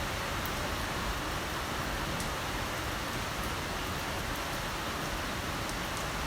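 Heavy rain falling steadily, a dense even hiss with a few faint sharp drop ticks.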